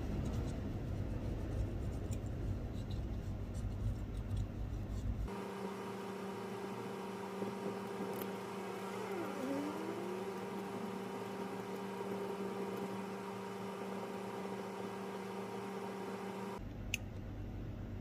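Steady machine whir and hum. About five seconds in it changes abruptly to a steadier humming tone with a brief gliding whistle, and it changes back near the end.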